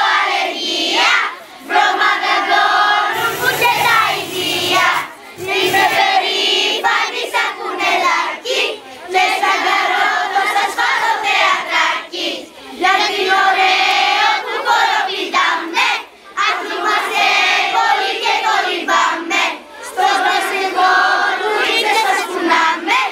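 A large crowd of children, mostly girls, chanting and singing a group cheer in unison, in phrases a few seconds long with brief breaks between them.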